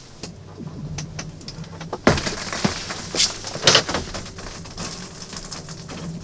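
Lake ice cracking under the shelter: a sudden low thump about two seconds in. Around it come several sharp rustles of clothing and tackle being handled.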